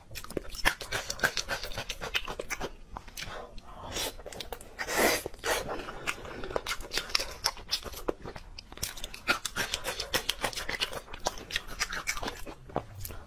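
Close-miked mouth chewing braised beef tendon: rapid, irregular wet smacks and sticky clicks of lips and tongue, with one longer, louder wet sound about five seconds in.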